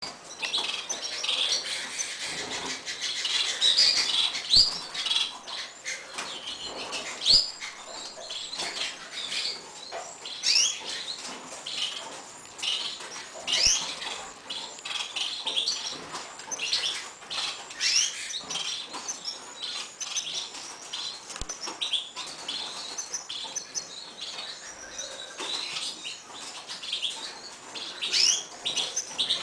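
Gloster canary nestlings begging to be fed: a dense, continuous chorus of high, thin cheeps, many of them quick rising chirps, with a few short clicks and flutters among them.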